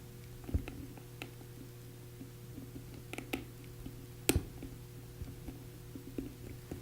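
Scattered small clicks and taps of a T6 tool and a plastic Boa M3 dial as the dial's screw is turned clockwise to tighten it. The loudest click comes about four seconds in, over a faint steady hum.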